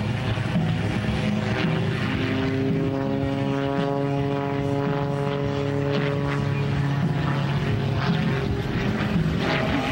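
Pitts S-2S aerobatic biplane's six-cylinder Lycoming engine and propeller droning as it flies aerobatics overhead. Its pitch shifts as the plane manoeuvres and climbs away.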